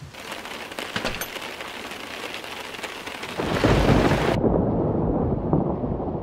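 Heavy rain hissing, coming in suddenly at the start, then a loud low rumble of thunder from about three and a half seconds in. The high rain hiss cuts off abruptly a second later, leaving the deep rumble.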